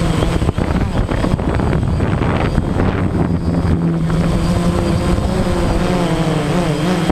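DJI Phantom quadcopter's motors and propellers buzzing up close, with wind rumbling on the microphone in the first half. From about four seconds in, the buzz wavers up and down in pitch as the motors change speed.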